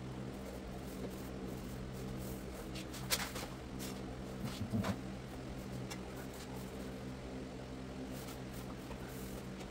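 Steady low mechanical hum in a room, with a few short clicks and taps about three seconds in and again around four and a half to five seconds in, as vinyl planks are handled and laid onto adhesive.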